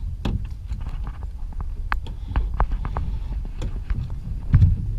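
Wind on the microphone and water running along the hull of a small sailing dinghy, with scattered clicks and knocks from the rigging and sail and a heavier thump about four and a half seconds in.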